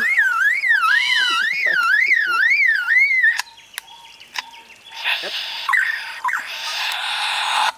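A bird whistling a siren-like wail that rises and falls about twice a second for three and a half seconds. About five seconds in comes a loud hiss lasting nearly three seconds.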